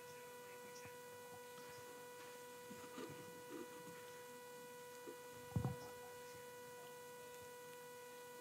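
Quiet room tone carrying a steady electrical whine, a set of pure tones around 500 Hz and its multiples. There are a few faint indistinct sounds, then a single dull thump a little past halfway.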